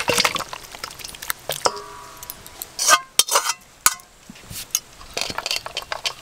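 Metal spoon scraping and clinking against a metal kadai and a steel bowl as thick curry is scraped out into the bowl. One knock about two seconds in leaves the metal ringing briefly.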